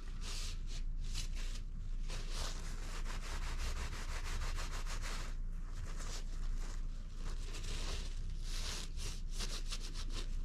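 Hand-worked rubbing and scraping strokes, back and forth, on a homemade kama during shaping or smoothing. The strokes come in uneven runs, with a quicker burst of short strokes near the end.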